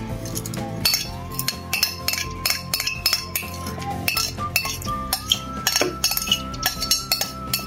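A ladle stirring a thick mango ice candy mixture in a pot, clinking lightly against the pot, over background music with a steady beat and a held melody.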